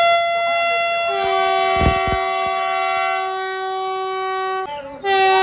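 Vande Bharat Express electric train's horn blowing as it pulls into the station. A single high note is joined about a second in by a lower note, and the two are held together for several seconds. The horn cuts off briefly near the end, then sounds again.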